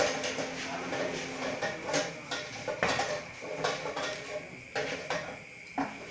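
A popcorn machine's metal kettle being tipped and set back by hand, with irregular metallic clanks and knocks of the pot and its fittings.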